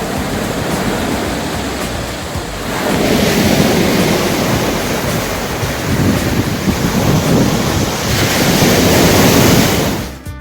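Sea waves washing against the shore, with wind buffeting the microphone. The surf swells louder twice, about three seconds in and again near the end.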